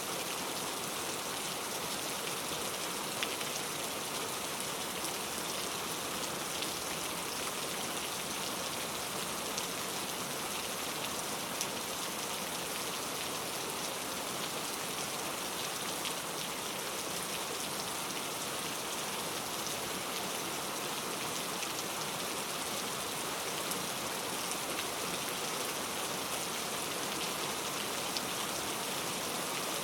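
Steady, even rain falling, a dense hiss with a few single drops ticking out now and then. No thunder is heard.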